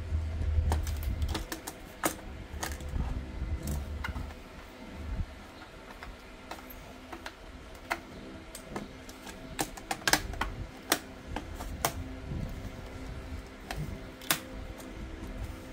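Irregular sharp clicks and taps of plastic housing parts of a Tefal steam iron being handled and fitted together by hand.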